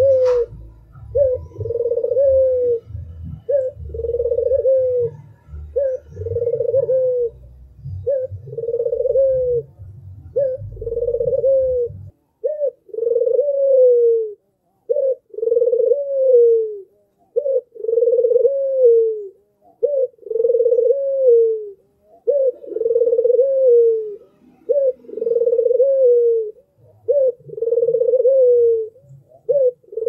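White ringneck dove (domestic Barbary dove, 'puter') cooing over and over, about one coo every one and a half seconds. Each coo is a short note followed by a longer one that falls away at the end. A low rumble runs underneath and stops about twelve seconds in.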